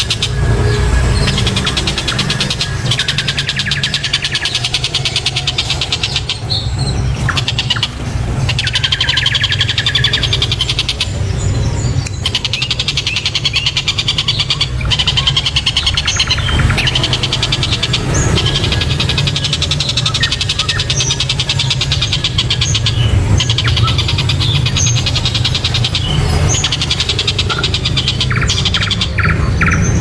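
Tengkek buto (Oriental dollarbird) calling: runs of fast, rattling repeated notes lasting a few seconds each, with short gaps between, over a steady low rumble.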